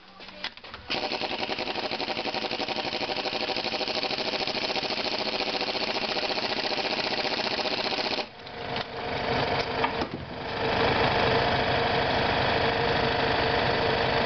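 Air impact wrench hammering as it drives the threaded rods of a coil-spring compressor down, compressing a MacPherson strut's coil spring. After a few short bursts it runs steadily, stops briefly about eight seconds in, stutters in short bursts, then runs on steadily and louder.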